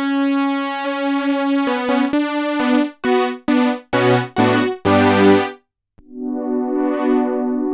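Sequential Trigon 6 analog polysynth playing a bright sawtooth patch: held notes, then a run of short, clipped chords. After a brief stop about six seconds in, a new chord swells in, its tone brightening and then dulling again.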